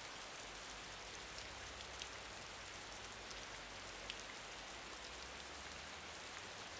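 Faint, steady rain ambience, with the odd single drop ticking out now and then.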